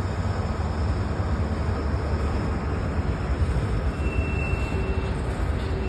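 Freight train passing close by: a diesel locomotive running mid-train and covered hopper cars rolling past on steel wheels, a steady deep rumble. A faint high squeal comes in briefly about four seconds in.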